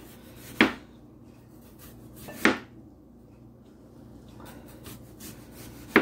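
Kitchen knife slicing an onion on a plastic cutting board: three sharp knocks of the blade striking the board, about two seconds apart, with faint ticks between.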